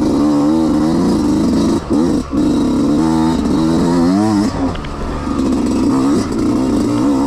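Dirt bike engine revving up and down as the rider works the throttle over uneven trail, with brief drops where the throttle is rolled off about two seconds in and again just before the halfway mark.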